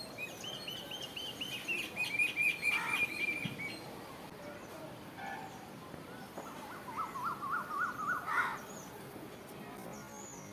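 Birds singing: a quick run of repeated high chirps for about three and a half seconds, then a lower, warbling run of notes for about two seconds, over a steady faint background hiss.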